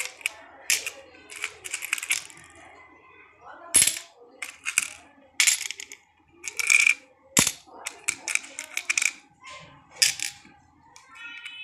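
Coins clinking as they are dropped one at a time into a small bowl and picked out of others, about a dozen sharp, ringing clinks at an uneven pace.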